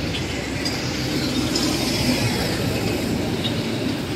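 Auto-rickshaw on the move: a steady engine and road rumble, heard from aboard.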